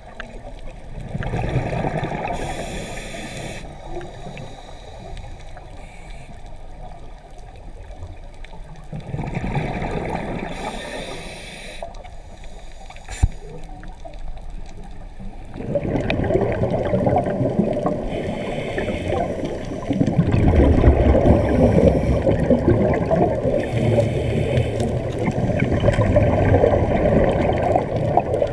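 A scuba diver breathing through a regulator, heard underwater by the camera: hissing inhalations and gurgling rushes of exhaled bubbles, repeating every several seconds and louder in the second half. One sharp click about thirteen seconds in.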